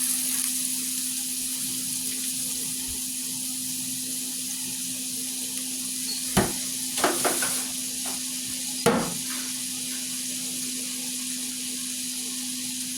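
Food cooking with a steady sizzling hiss over a constant low hum, with a few short knocks between about six and nine seconds in.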